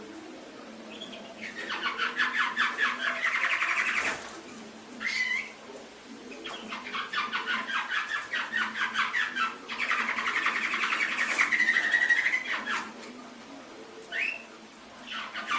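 Domestic canary singing: two long runs of fast trills, the second about six seconds long, each followed by a short sliding note.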